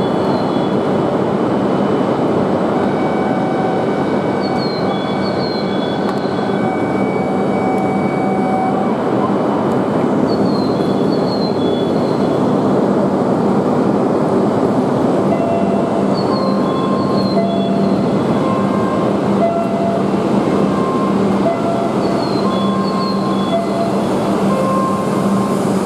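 Tohoku Shinkansen Hayabusa train standing at the platform with a steady hum, alongside short high electronic chirps repeating every few seconds. In the second half a repeating two-note signal tone sounds.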